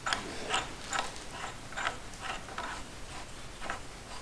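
Hand ratchet clicking in short strokes, roughly two sharp clicks a second at uneven spacing, as it runs a harmonic balancer puller's bolt in against the crank snout.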